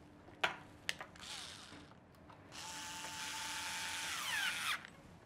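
Two sharp clicks as the metal faceplate is set onto the lock body, then a small cordless electric screwdriver runs for about two seconds driving in the faceplate screw, its whine falling away as it stops.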